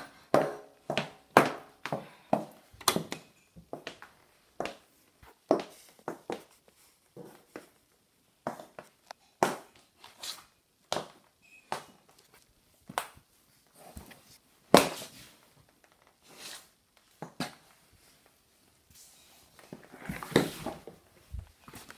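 Footsteps of heeled leather ankle boots on a wooden parquet floor: the heels knock on the boards in a walking rhythm, about two steps a second at first, then slower and more spaced out. A short patch of rubbing and knocking comes near the end.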